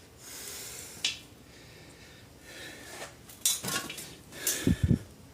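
Metal objects clinking and clanking as they are handled: one sharp clank about a second in, a cluster of clanks past three seconds, then two dull thumps near the end.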